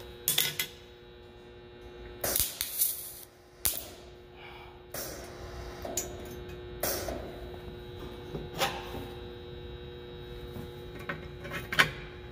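Miller MIG welder laying short, stop-start tack welds: a series of uneven bursts of crackle and popping, the longest about a second, over the welder's steady hum. The welder is not running right, and the owner suspects something is wrong with the machine or its settings.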